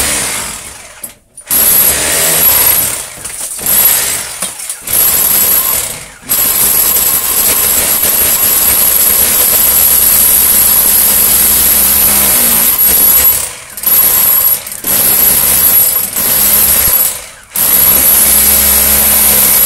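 Hand-held electric drill run in repeated bursts, with one long run of about seven seconds in the middle, giving a steady high whine.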